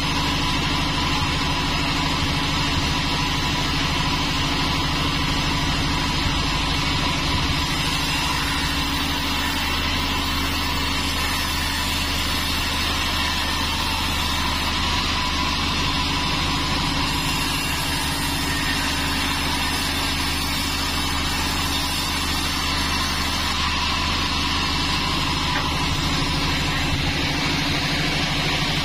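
36-inch band sawmill running steadily while sawing teak logs: a continuous low machine hum with a steady whine and the hiss of the blade in the wood.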